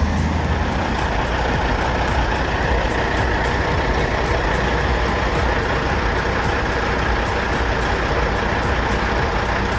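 Heavy diesel vehicle engine running steadily with a constant rumble.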